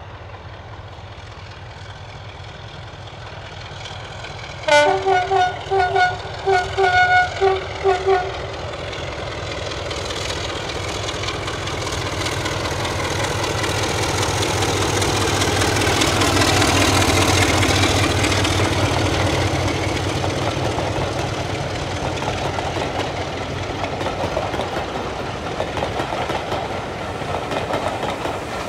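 A diesel-hauled train approaching: about five seconds in its horn sounds a run of short toots. The locomotive's engine and the train's running noise then grow louder, loudest about halfway through as the diesel passes close by, followed by the carriages rolling past.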